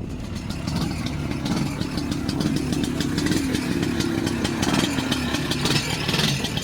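Vintage snowmobile's two-stroke engine running, its speed wavering slightly up and down.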